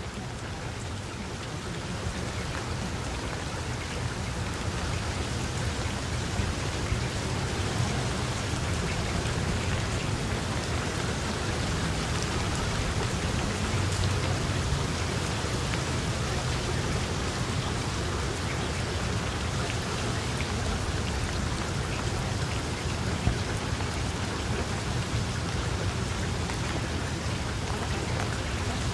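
Steady heavy rain falling, a dense hiss with scattered drop ticks and a low rumble underneath, swelling a little over the first several seconds and then holding steady.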